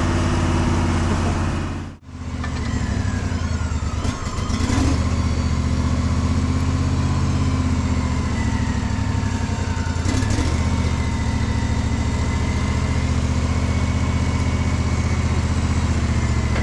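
An engine running steadily at idle. The sound briefly cuts out about two seconds in.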